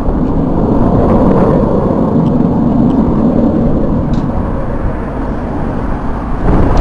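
Jet noise from the Red Arrows' BAE Hawk T1 jets and their Adour turbofan engines flying the display: a loud, steady rush that eases slightly before the end.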